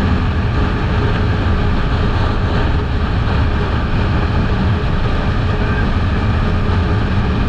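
Kawasaki Eliminator 500's parallel-twin engine running at a steady speed on the move, mixed with a constant rush of wind on the microphone.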